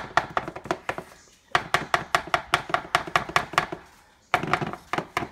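Potato masher pounding overripe bananas in a bowl: a fast run of sharp knocks, about six a second, in three spells broken by short pauses about a second in and near four seconds in.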